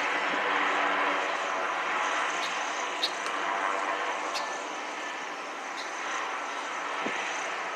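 Goodyear blimp N3A, a Zeppelin NT, droning steadily from its piston engines and propellers as it passes low overhead. A few short high clicks are heard over the drone.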